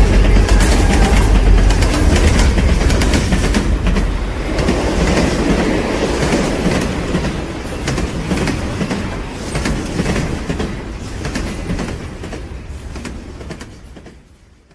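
Train running past on the rails, with a low rumble and repeated clicking of wheels over rail joints, fading away steadily until it dies out near the end.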